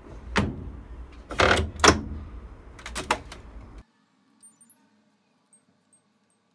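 Samsung top-loading washing machine lid being handled and shut with several clattering knocks, the loudest pair about a second and a half in. After a sudden drop to quiet, faint short high beeps come a few tenths of a second apart as the course dial is turned.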